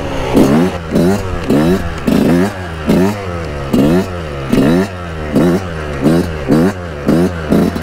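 Yamaha YZ125 two-stroke motocross engine and exhaust being revved in quick throttle blips, about two a second, each rising and falling in pitch over a steady idle, the exhaust singing.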